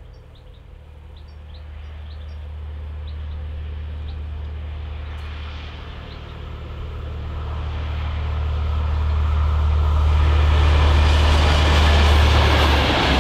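A pair of SNCF BB 69200-class diesel locomotives approaching and passing close by: a low engine drone under a rumble that grows steadily louder and peaks as they go past near the end.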